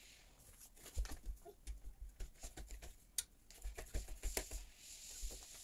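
Scattered, irregular light clicks and taps with dull low bumps: treadmill handlebar and frame parts being handled and fitted by hand. The sharpest clicks come a little after three seconds and again past four seconds.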